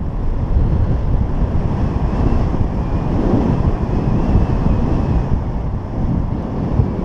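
Airflow buffeting an action camera's microphone during a paraglider flight: a steady low rumble of wind noise.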